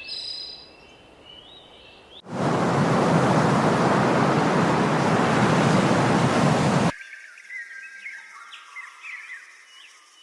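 Birds chirping, cut off about two seconds in by a loud, steady rushing noise that lasts about four and a half seconds and stops abruptly. Then many short birdsong chirps and trills.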